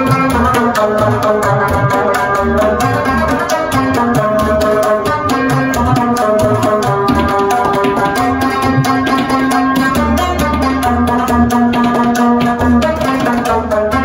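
Instrumental background music: a fast, steady hand-drum beat under a held melody.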